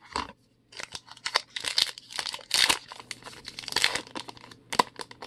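A 2020 Topps Gypsy Queen baseball card pack being torn open, its wrapper crinkling and tearing in quick, irregular rustles that start about a second in.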